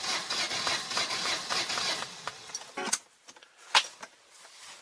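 Citroën Ami 8's starter motor cranking its air-cooled flat-twin engine, with the choke on, for about two and a half seconds without the engine catching. This car is an extremely slow starter. The cranking stops suddenly, followed by two sharp clicks.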